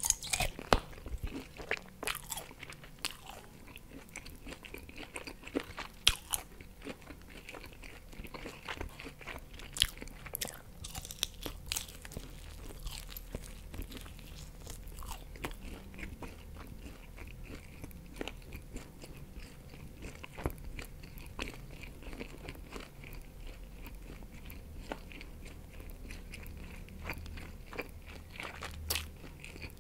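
Close-miked eating of barbecue pork ribs: biting into the glazed meat and chewing, with many sharp crackles and smacks, thickest in the first dozen seconds and lighter, steadier chewing after.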